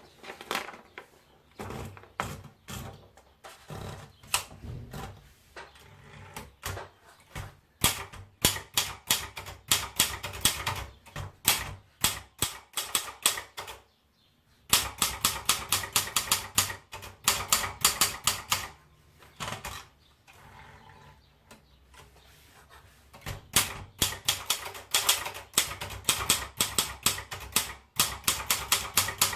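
Sperry Remington Idool typewriter being typed on: quick runs of keystrokes, several a second, broken by short pauses and a quieter, slower stretch about two-thirds through.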